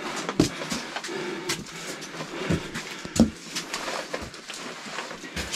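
Footsteps and gear knocking as a hiker walks a rocky mountain trail: irregular sharp clicks and taps, roughly one a second, over a soft rustle.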